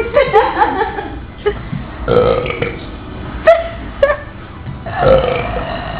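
Forced, loud 'trucker burps', about five belches one after another, some drawn out for most of a second and some short and abrupt.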